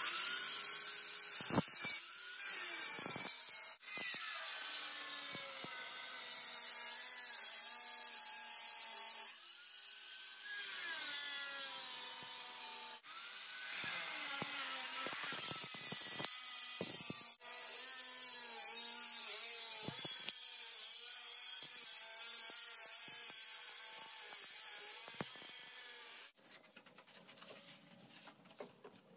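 Angle grinder with a diamond disc cutting into a granite countertop, its motor pitch sagging and recovering as the blade bites into the stone. It cuts out a few times briefly and stops a few seconds before the end.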